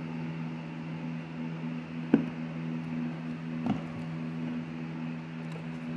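Handling noise from a tablet being worked loose from its rubber mud-flap mount: two light knocks about a second and a half apart, over a steady low hum.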